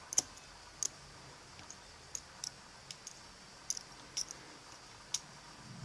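Small, sharp metal clicks and taps, about a dozen at irregular intervals, the loudest just after the start: small lock pins being taken out of a dimple lock's plug and set down as the lock is gutted.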